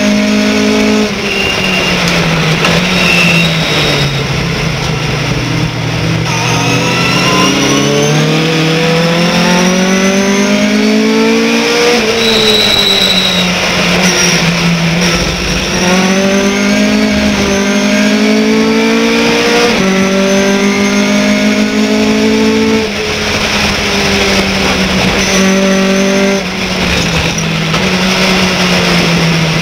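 Race pickup truck's engine heard from inside the cockpit at racing speed. Its note falls over the first few seconds as it slows, then climbs and drops again and again with the gear changes.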